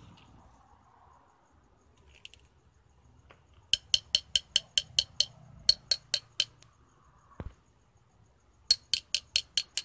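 Metal rod tapping rapidly inside a brass tube, packing metal granules into it as the core of a homemade aura meter. Three runs of quick, ringing clinks, about six a second: near the middle, again shortly after, and near the end.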